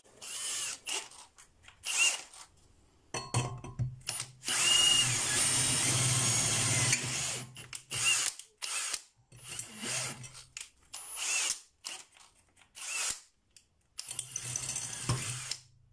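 Cordless drill boring into a steel square tube with a twist bit, run in short stop-start trigger bursts, the motor whining up with each pull, with one longer run of a few seconds about five seconds in.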